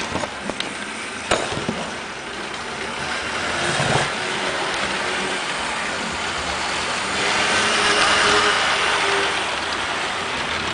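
HO-scale model passenger train running on track: the streamlined diesel locomotive's motor whirring and the Baltimore and Ohio passenger cars' wheels rolling on the rails. It is steady, and louder past the middle as the train comes close. A few sharp knocks come in the first second or so.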